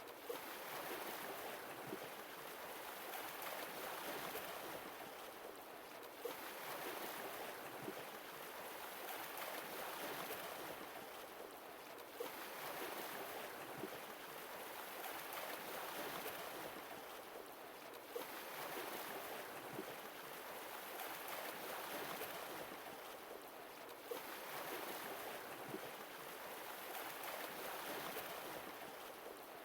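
Sea waves washing onto a shore, swelling and falling back in a slow rhythm of about one wave every six seconds.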